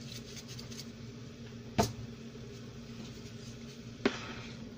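Two sharp knocks of a wooden spatula against a pan of sauce, about two seconds apart, over a steady low hum.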